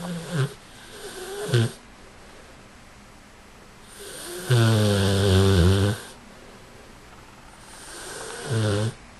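American Bulldog snoring in its sleep: four snores, the loudest a long, deep one of about a second and a half near the middle, with shorter ones at the start, about a second and a half in, and near the end.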